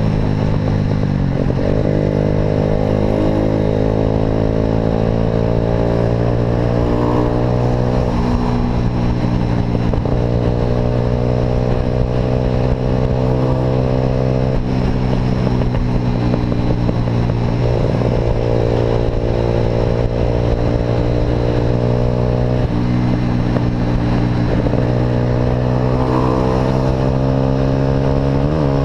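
Motorcycle exhaust from an aftermarket Atalla pipe while riding: a loud, steady engine note whose pitch breaks and resets several times, as at gear changes.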